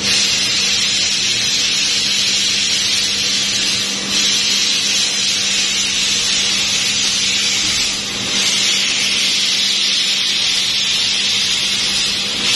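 CNC laser cutting machine cutting grill patterns: a steady, loud hiss over a low hum, dipping briefly about four and again about eight seconds in.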